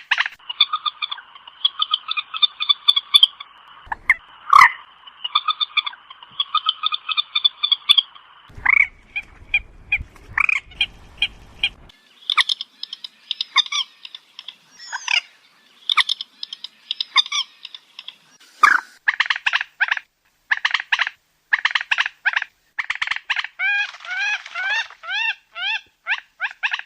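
Common moorhen calls in quick, clucking and croaking series of short notes, with barely a break. This is a call recording of the kind played at night as a lure for trapping moorhens.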